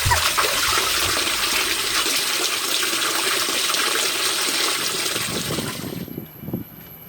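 Water rushing and splashing in a steady stream, stopping abruptly about six seconds in.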